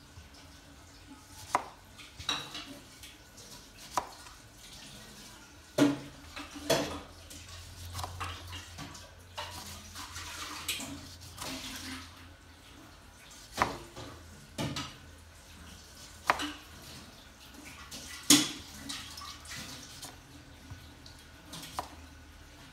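Kitchen knife slicing lemons and knocking down on a plastic cutting board: about ten sharp knocks at uneven intervals, with softer cutting and scraping sounds between them.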